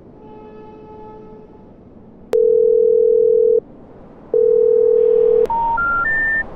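Telephone audio from a phone held to the ear: two loud steady tones about a second long, each starting with a click, then three short notes rising in pitch. The three rising notes are the special information tone that signals the number dialed is not in service.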